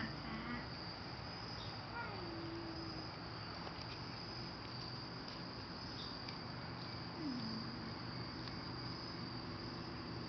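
Crickets chirring in a steady high-pitched drone. A few short calls that fall in pitch come at the start, about two seconds in and about seven seconds in.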